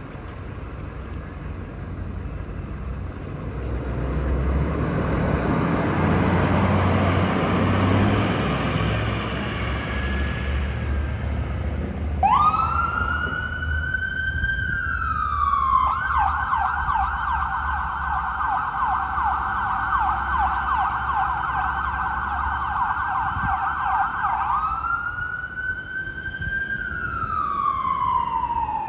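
A heavy vehicle's engine rumble and road noise swell and fade as it passes. About twelve seconds in, an emergency vehicle's electronic siren starts: a wail rises and falls, switches to a rapid yelp for about eight seconds, then goes back to the rising and falling wail.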